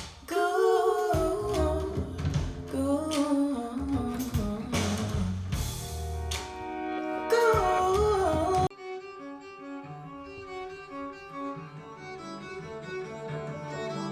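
Recorded music played through Piega Premium 501 Wireless Gen 2 loudspeakers. A full passage with a wavering melodic line cuts suddenly, about two-thirds of the way in, to a quieter passage of strings.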